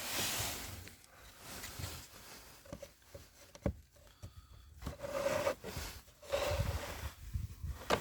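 A new cabin filter being slid into its plastic housing: rustling and scraping of the filter against the plastic, with a few sharp clicks and a brief squeak a little past halfway.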